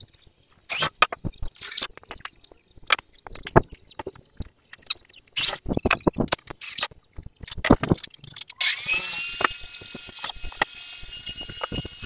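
Irregular knocks and clicks, then about eight and a half seconds in a machine starts suddenly and runs steadily with a hiss and a thin high whine.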